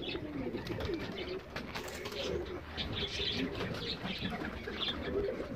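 Domestic pigeons cooing, several overlapping at once, with scattered higher chirps over them.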